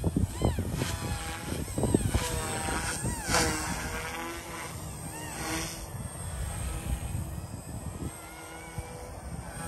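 Blade 150S micro RC helicopter, running at about a 5000 rpm headspeed, whining from its electric motors and spinning rotors. The pitch rises and falls again and again as it manoeuvres, over a low rumble.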